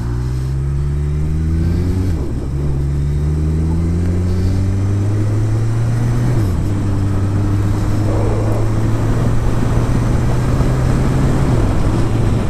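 Kawasaki Ninja 1000 inline-four engine pulling away from a stop and accelerating through the gears: its pitch rises, drops at upshifts about two and six and a half seconds in, then holds fairly steady, with another shift near the end. Wind noise builds with speed.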